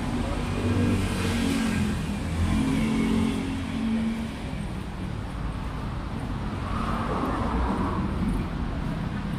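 Road traffic passing on a city street, with a vehicle engine accelerating during the first few seconds and another vehicle going by later.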